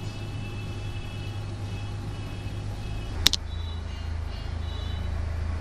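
A steady low rumble of background noise, with one sharp click about three seconds in.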